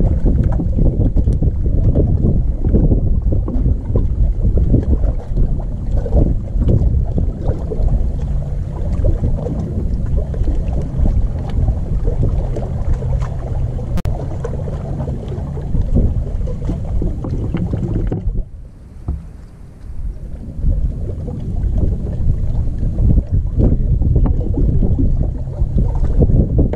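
Wind buffeting the camera's microphone in a steady low rumble, with light slaps of water against a bass boat's hull; the wind drops out for a couple of seconds about two-thirds through, then returns.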